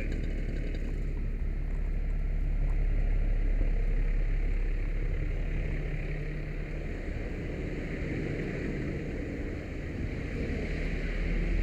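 Fire engine idling: a steady low engine rumble with no change in speed.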